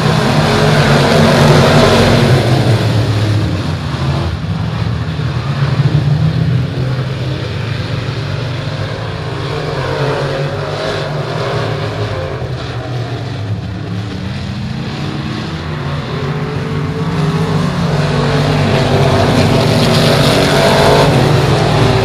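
A field of dirt-track stock cars racing, their engines running at full throttle as a pack. The sound is loudest as the cars pass close in the first few seconds, fades as they run the far side of the oval, and rises again near the end as they come back around.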